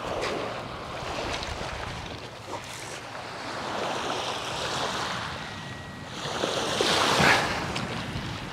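Small waves washing onto a sand-and-shingle beach, with wind buffeting the microphone; a louder wave breaks and rushes up the shore about seven seconds in.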